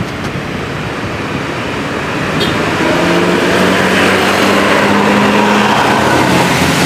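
Tour coach bus pulling away and driving close past, its engine and tyres growing louder about three seconds in, with a slight drop in engine pitch as it goes by, over general traffic noise.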